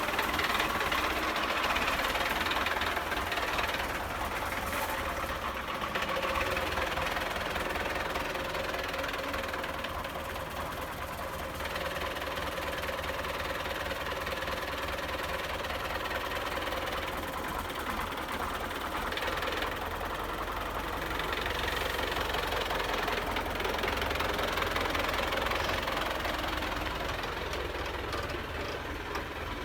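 Diesel engine of a Belarus MTZ 820 tractor running steadily, its level easing off and picking up a little along the way.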